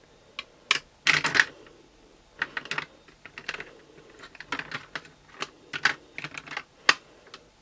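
Pens clicking and clattering as they are handled among other pens, in irregular clusters of short plastic clicks and taps.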